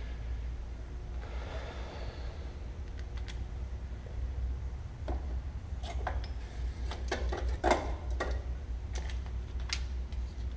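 Metal hand tools clinking and tapping against metal, with several sharp clinks in the second half, over a steady low hum.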